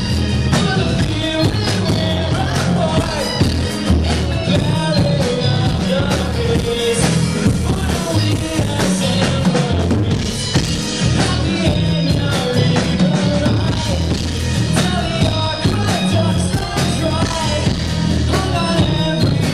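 Live rock band playing, with singing, electric guitars, keyboards and drums.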